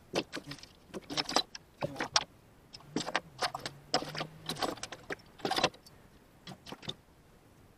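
Small items being handled and moved about while clearing out a pickup's cab: quick, irregular clinks, rattles and rustles, with a low hum for a second or so in the middle.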